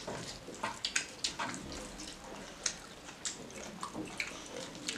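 Close-up wet eating sounds: fingers squishing curry-soaked rice on a wooden plate and mouth smacks from chewing, a run of irregular short clicks and squelches.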